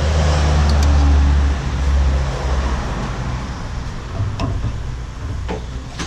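Road traffic: a motor vehicle passing close by, its low engine rumble loudest about a second in and then slowly fading. Two light clicks sound later on.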